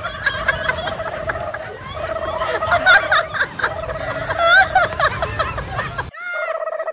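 A rapid warbling, gobble-like tone repeated in bursts of under two seconds with short breaks. It runs on unchanged across a cut in the footage, so it is an added comic sound effect rather than a sound from the scene.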